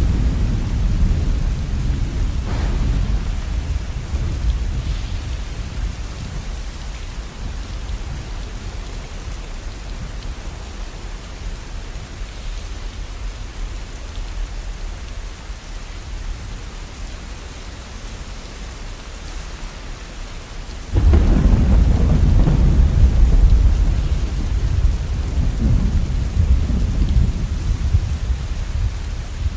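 Steady rain with two rolls of thunder: one already rumbling at the start and fading away over several seconds, and a second that breaks suddenly about two-thirds of the way through and rumbles on, slowly fading, toward the end.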